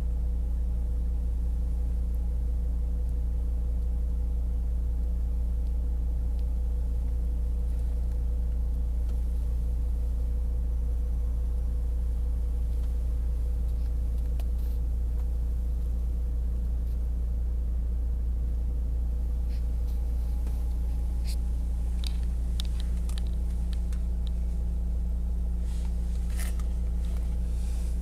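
Volvo V70 2.4 D5 five-cylinder turbodiesel idling steadily, heard from inside the cabin as a constant low hum. A few light clicks come in the second half.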